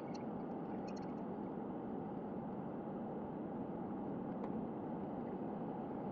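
Steady car-cabin noise of a car driving, picked up by a dashcam: an even engine and road hum with no changes, with a few faint clicks in the first second or so.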